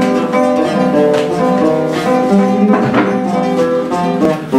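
Solo flamenco guitar playing the opening introduction to fandangos: quick plucked melodic notes with a few strummed chords, before any singing comes in.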